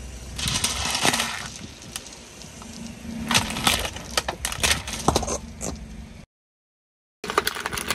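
Hard, brittle objects cracking and crunching under a car's tyre: a dense run of sharp cracks and crunches over a low rumble, cutting off suddenly about six seconds in, then a few more cracks near the end.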